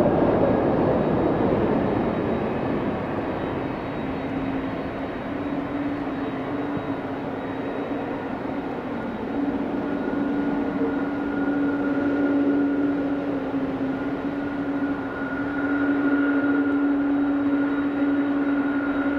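Boeing 777-200 airliner's twin turbofan engines on the landing rollout: a broad rushing roar, loudest at first with a whine gliding down as the engines wind down from reverse thrust, settling after a few seconds into a steadier drone with a low humming tone as the airliner rolls away.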